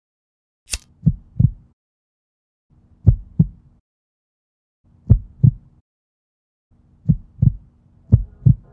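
Heartbeat sound effect: pairs of deep thumps about every two seconds, coming faster near the end. A brief high hiss sounds just under a second in.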